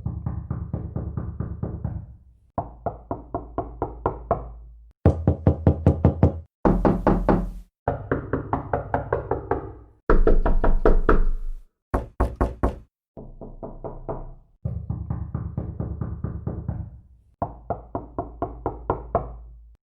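Door-knocking sound effects played back to back: about ten short clips, each a quick run of several sharp knocks, with brief gaps between them. Several clips have a steady low hum under the knocks.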